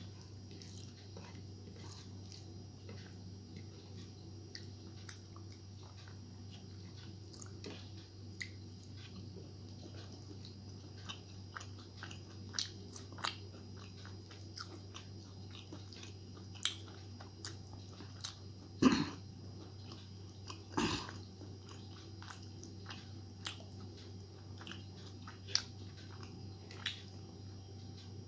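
Close-miked mouth sounds of someone eating rice and rohu fish in poppy-seed paste by hand: soft chewing with many small wet clicks, and two louder knocks about two-thirds of the way through. A steady low hum runs underneath.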